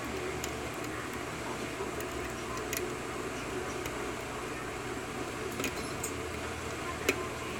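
Lock pick working the pins of a Corbin six-pin lock cylinder under tension: a few faint metallic clicks, the sharpest about seven seconds in, over a steady room hum.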